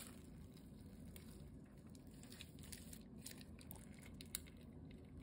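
Slime being squeezed and stretched by hand, making faint sticky crackles and small pops, with one sharper pop a little past four seconds in.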